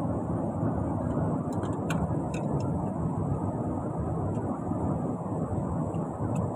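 Steady low rumbling background noise throughout, with a few faint light clicks between about one and a half and two and a half seconds in as a screwdriver works the hose clamp on a forklift's hydraulic return filter line.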